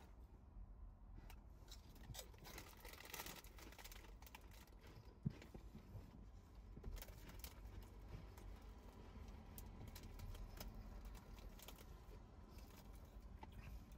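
Faint crunching of Monster Munch corn snacks being chewed, heard as a scatter of small clicks, with one sharper click about five seconds in.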